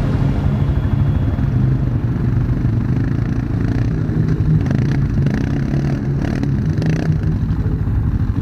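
ATV engine running with a steady low exhaust pulse, with a few clattering knocks in the middle.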